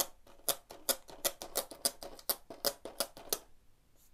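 Adhesive age-rating sticker being peeled off a metal steelbook case: a quick, irregular run of sharp crackles that stops about three and a half seconds in.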